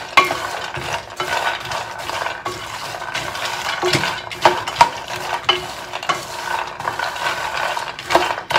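Wooden spoon stirring oil-coated roasted cashews around a stainless steel skillet: the nuts rattle and scrape against the metal in a continuous rustle, with repeated sharper clicks and knocks of spoon and nuts on the pan.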